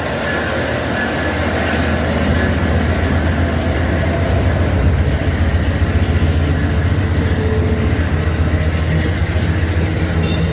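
Amtrak Northeast Regional passenger train rolling through on the rails, a steady low rumble that grows a little louder. A short high wheel squeal comes near the end.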